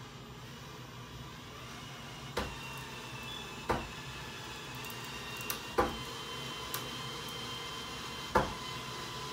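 Four sharp knocks spaced a second or two apart, with a couple of fainter taps, against a steady background hum: work on a wooden fish-tank stand being assembled.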